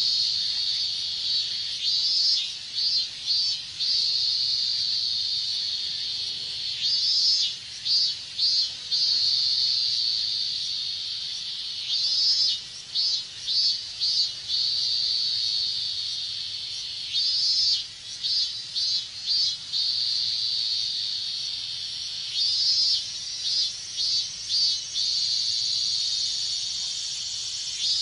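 Chorus of robust cicadas (minmin-zemi): a steady high-pitched drone, broken about every five seconds by a loud pulsing phrase of roughly five beats.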